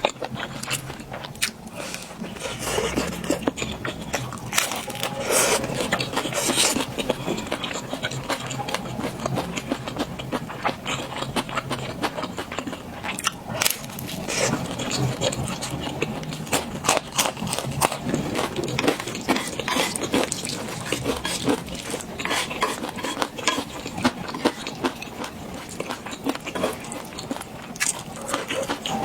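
Close-miked eating: continuous chewing and mouth sounds with many small clicks and smacks.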